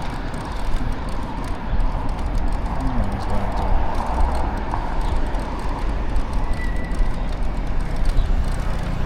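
City street traffic heard from a moving bicycle: a steady, dense mix of vehicle noise with a strong low rumble, and a brief faint high beep about two-thirds of the way through.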